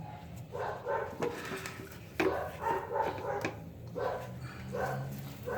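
A dog barking repeatedly, with short barks coming every half second to a second.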